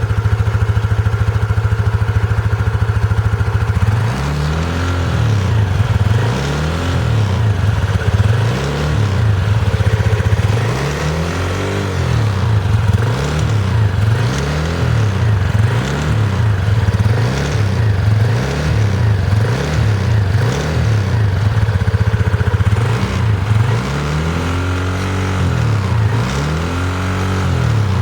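PGO Tigra scooter engine idling on its centre stand, then from about four seconds in revved over and over in short throttle blips that rise and fall every second or two, spinning the rear wheel. This is the condition under which the owner hears an abnormal noise from the rear brake caliper, which is silent when the wheel is turned by hand.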